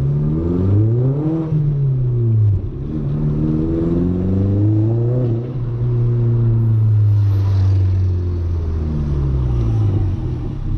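Audi A3's 1.8-litre turbocharged 20-valve four-cylinder engine revving up and easing off under throttle while driving, its pitch rising and falling twice.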